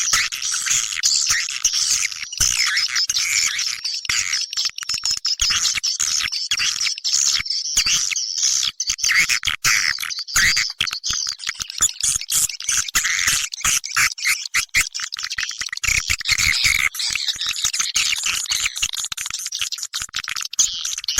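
Swiftlet lure call recording: a dense, continuous twittering chatter of many swiftlets, rapid chirps overlapping without a break.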